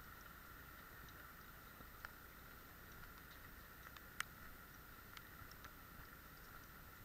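Near silence: a faint steady hiss with a few scattered small ticks, the sharpest about four seconds in.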